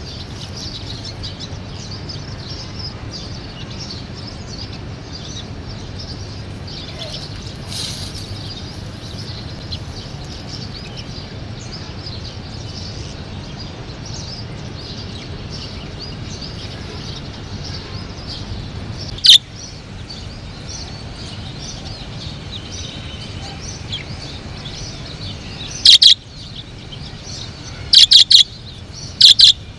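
A flock of budgerigars chattering and warbling steadily. A few much louder, sharp calls break through: one about two-thirds of the way in, then several in quick succession near the end.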